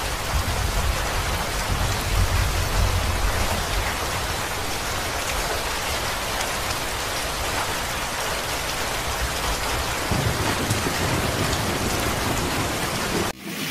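Heavy rain pouring down in a steady hiss, with a deep rumble underneath for about the first ten seconds. The sound cuts off abruptly near the end.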